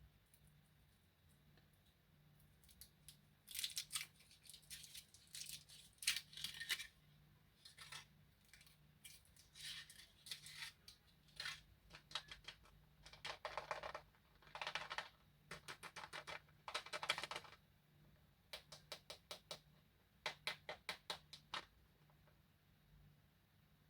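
Candy and its plastic packaging being handled: irregular bursts of crisp crinkling and clicking, ending in quick runs of several even clicks.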